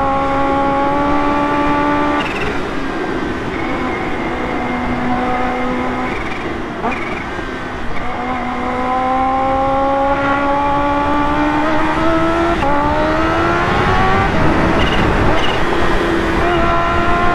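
Kawasaki Ninja H2's supercharged inline-four engine pulling under throttle, its pitch climbing, falling back twice at gear changes and climbing again, over heavy wind rush.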